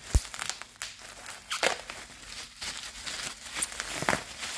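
Plastic bubble wrap crinkling and rustling as it is pulled open by hand, with irregular sharp crackles. A dull thump just at the start.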